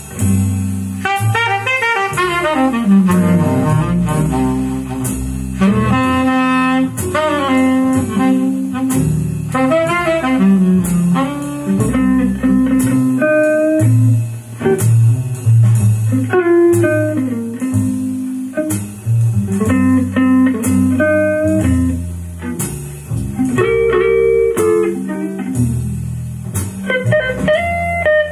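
Blues-jazz instrumental music led by guitar over a bass line with a steady beat, played from a Revox PR99 reel-to-reel tape deck through Altec A7 Voice of the Theatre horn loudspeakers and heard in the room.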